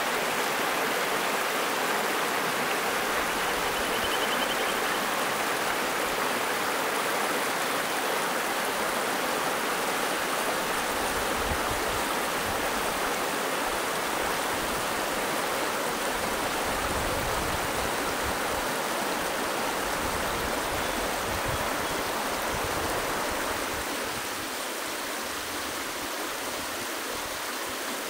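Shallow mountain river rushing and splashing over rocks and stones, a steady wash of running water that gets a little quieter near the end.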